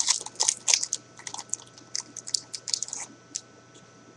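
Trading card pack wrapper being torn open and crinkled by hand: rapid, irregular crackling that stops about three seconds in.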